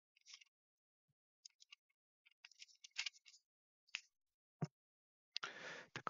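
Faint, scattered small clicks and rustles, with a longer rustle about five seconds in, followed by a quick run of clicks.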